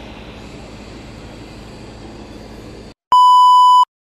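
Steady shop background noise, then about three seconds in a loud, steady test-tone beep lasting under a second, of the kind laid under TV colour bars. It is an editing insert that cuts off abruptly.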